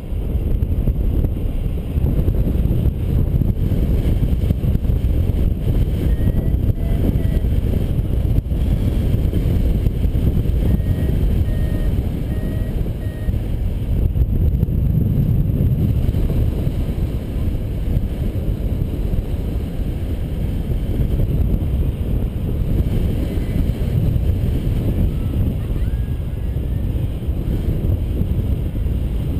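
Wind buffeting the microphone of a harness-mounted camera on a paraglider in flight: a loud, steady low rumble of rushing air.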